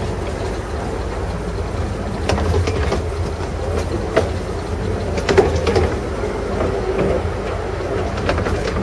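Riding in a 15-inch gauge miniature railway carriage: a steady rumble of the coach wheels running on the track, with scattered sharp clicks as they pass over rail joints.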